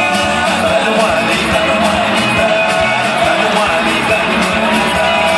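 Loud dance music with singing played over a stage sound system, with a steady beat and no break.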